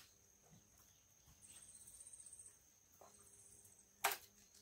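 Faint, high-pitched insect trilling in two short spells, over a thin steady high whine, with a single sharp knock near the end.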